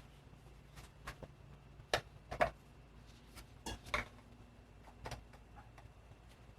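A few light clicks and knocks from small 3D-printed plastic parts and a hot glue gun being handled during assembly. The loudest come about two seconds in.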